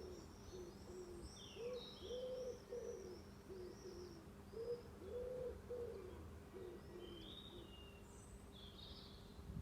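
Evening birdsong: a pigeon cooing in repeated phrases of four or five low notes, two full phrases after the end of one at the start, over a series of high thin chirps from smaller birds, with a few sharper calls near the end.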